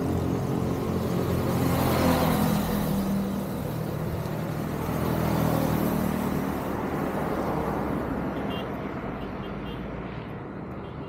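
Road vehicles passing by, engine and tyre noise swelling about two seconds in and again midway, then fading.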